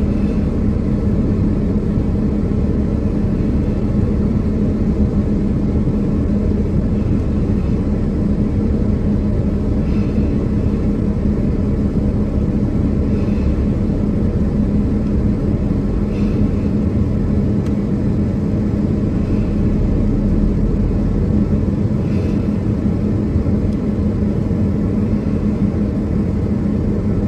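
Steady engine and road rumble of a car driving, as picked up by a dashcam, with a constant low hum.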